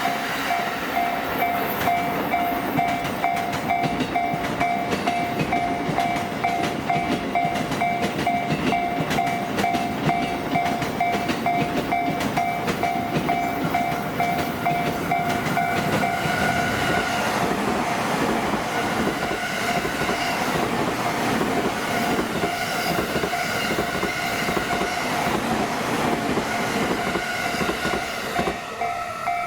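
Trains passing over a railway level crossing, wheels rattling and clattering on the rails, while the crossing's warning bell rings over them with a steady, pulsing two-tone clang.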